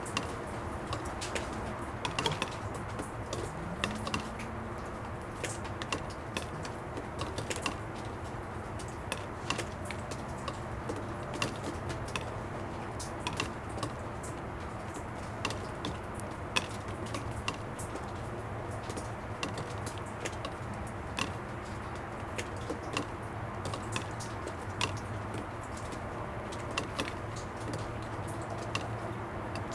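Water drops falling irregularly onto plastic, sharp ticks about one or two a second, over a steady low rumble of distant traffic.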